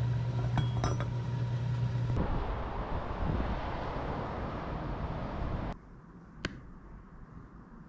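Background music with steady tones cuts off after about two seconds into a steady outdoor rushing noise. About six seconds in, that drops to quiet room tone, with one light tap.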